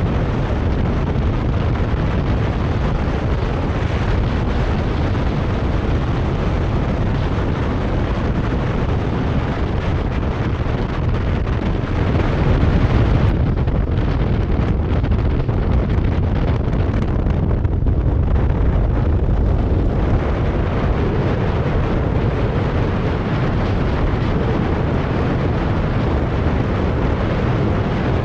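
Steady, loud wind buffeting on the microphone of a camera riding on a moving Kawasaki Versys 650 motorcycle, with the bike's engine and road noise running underneath. The rush grows a little louder about twelve seconds in.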